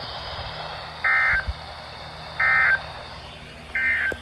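Three short Emergency Alert System (SAME) end-of-message data bursts from a NOAA Weather Radio broadcast, each a brief electronic data tone, about 1.3 s apart over steady radio hiss. They signal the end of the weekly required test.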